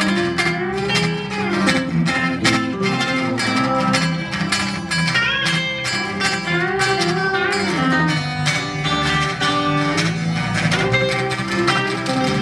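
A live band playing an instrumental number: guitars over a bass line, with a steady beat and a lead line of sliding notes.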